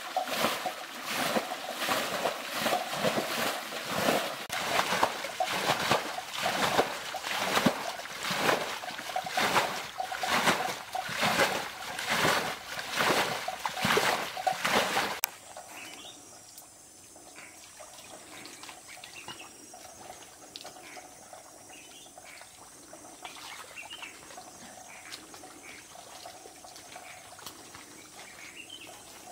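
Water being bailed out of a muddy ditch with steel bowls, a quick run of repeated splashes and sloshes from several scoopers, as the ditch is emptied to get at the murrel fish. About halfway through the splashing cuts off suddenly, leaving a much quieter outdoor background with faint short chirps.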